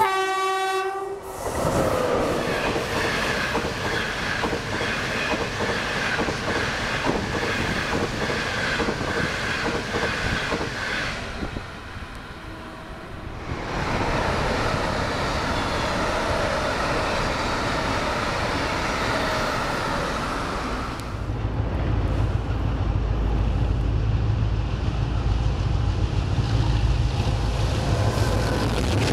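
A train horn sounds for about a second, then trains run past with wheels clicking over the rail joints, a CRH1 high-speed train among them. From about two-thirds of the way through, the deep low rumble of a DF11 diesel locomotive's engine comes in and stays to the end.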